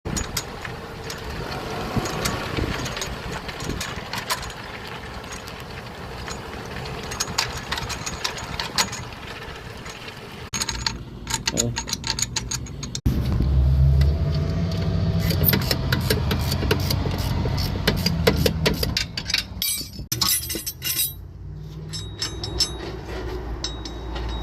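A car tyre and wheel making repeated clicking and knocking noises, with a steady low drone from the car through the middle part and abrupt cuts between takes.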